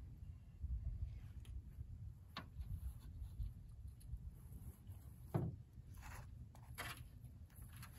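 Faint low rumble with a few soft knocks and rubs of a dog and gear shifting in a canoe, the loudest knock about five seconds in.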